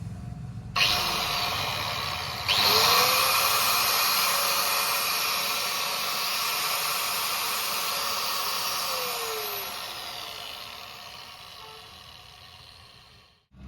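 Turtle 1050 W angle grinder running: it starts abruptly about a second in and gets louder at about two and a half seconds. The motor's pitch then falls and the sound fades gradually before cutting off just before the end.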